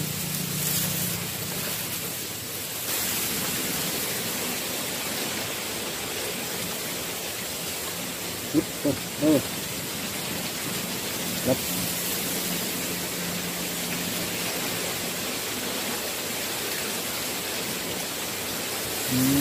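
Steady outdoor background hiss with a faint high steady tone through it, broken by a few short low-pitched calls about 8½, 9 and 11½ seconds in.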